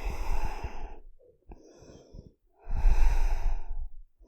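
A person taking slow, deep abdominal breaths close to the microphone: two long, audible breaths, one at the start and another about two and a half seconds in, with lighter breathing between.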